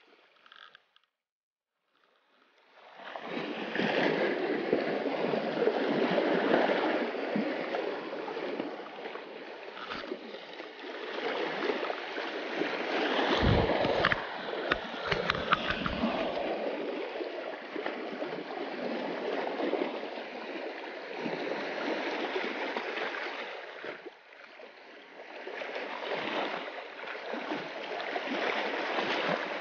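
Small sea waves washing and lapping on a rocky, pebbly shoreline, starting after a couple of seconds of near silence. A few low thumps on the microphone come about halfway through.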